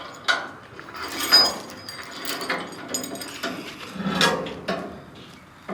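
Irregular knocks, clanks and rattles of hard objects being handled, with a short high squeak about a second in and a heavier thud a little past the four-second mark.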